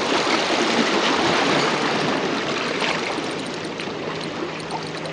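Small waves washing and lapping against jetty rocks: a steady watery wash, a little louder in the first couple of seconds.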